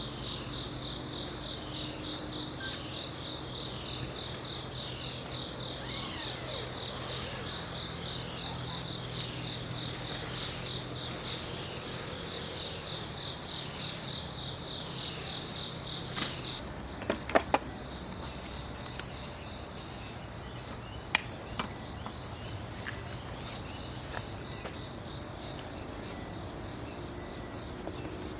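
Forest insects chirring: a steady high-pitched pulsing drone that shifts to a different rhythm about two-thirds of the way through. A few sharp clicks stand out shortly after the change.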